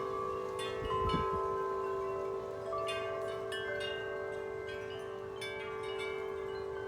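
Wind chimes ringing in the wind, struck irregularly so that many clear tones overlap and ring on. Gusts of wind rumble on the microphone in the first second or so.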